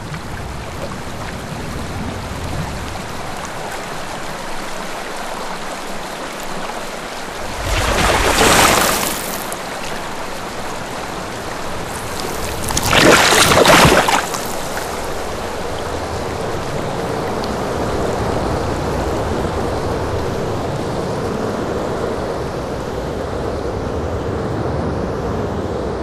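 Sci-fi alien-planet ambience: a steady rushing, water-like wash. Two loud surges rise and fall, each lasting about two seconds, roughly 8 and 13 seconds in.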